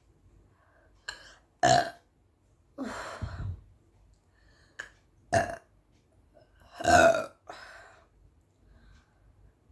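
A woman burping up the gas from a 500 ml bottle of Pepsi: four loud burps a second or two apart. The one about three seconds in is longer and deeper, and the loudest comes near the end.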